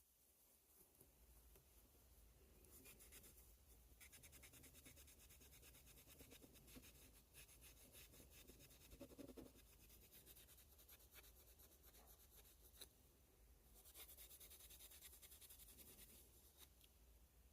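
Faint scratchy rubbing in rapid strokes, as in hand work on a pocket knife. It grows a little louder for a couple of seconds near the end.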